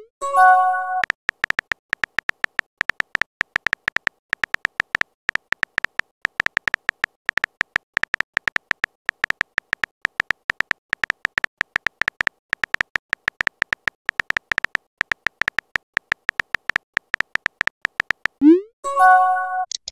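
Texting-app sound effects: a rapid, even stream of small synthetic key-tap ticks as a message is typed. Right at the start and again near the end comes a quick rising swoop and a short bright chime of a message being sent.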